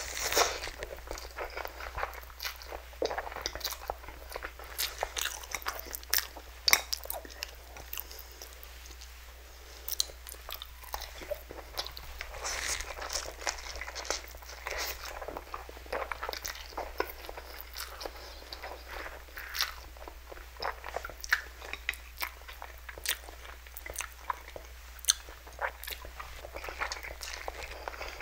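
Close-miked eating sounds: slurping spicy instant noodles, chewing and biting into a sausage, with many sharp wet mouth clicks and smacks throughout.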